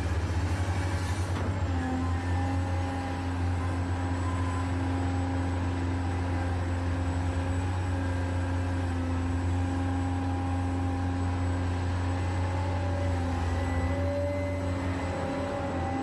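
Radio-controlled hydraulic excavator working: a steady low hum from its hydraulic pump and motor, with whining tones that shift in pitch as the boom and bucket move.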